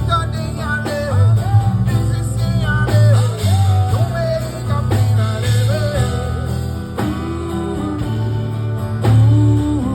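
Live band music: a strong, steady bass under a wavering melodic lead line.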